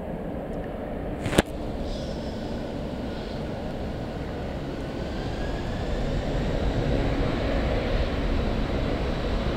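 Airliner engine noise, a low rumble that grows louder over the second half, with a faint gliding whine. A single sharp knock about a second and a half in is the loudest moment.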